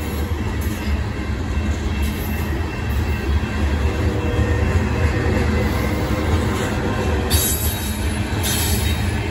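Freight train of covered hopper cars rolling past at steady speed: a continuous rumble of steel wheels on rail, with two short bursts of higher-pitched wheel noise near the end.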